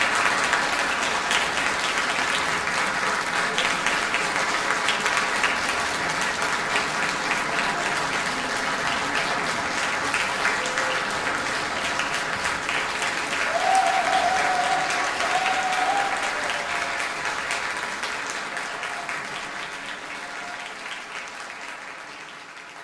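Concert-hall audience applauding. A brief cheering voice rises above the clapping about fourteen seconds in, and the applause fades out toward the end.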